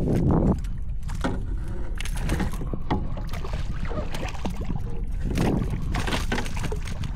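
Kayak paddling: irregular splashes and drips of a paddle working the water, over a steady low rumble of wind on the microphone.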